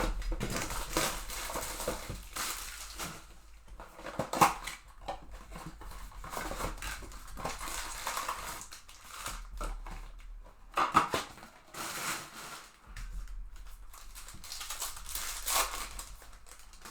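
Plastic wrapper crinkling and tearing as a trading-card box and its foil pack are ripped open and handled, with two sharper clacks about four and eleven seconds in.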